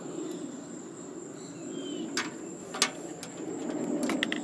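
A few sharp metallic clicks and taps as an aluminum plate with screws is handled against a rusty steel fuel tank, the loudest a little under three seconds in and a cluster near the end. Birds chirp in the background with short falling calls.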